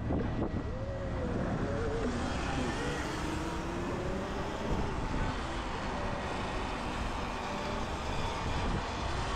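Wind rushing over the microphone of a moving electric dirt bike, with a thin electric-motor whine that wavers and slowly rises in pitch.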